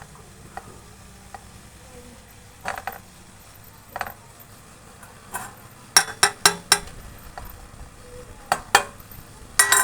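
Utensils and small dishes knocking and clinking together in scattered strikes, with a quick run of four loud clinks about six seconds in and a few more near the end.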